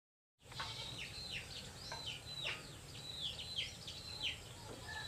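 Chicks peeping: a run of short, high peeps, each falling in pitch, several a second, over a faint low hum. The peeping starts about half a second in.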